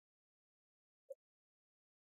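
Near silence, broken by a single short faint blip about a second in.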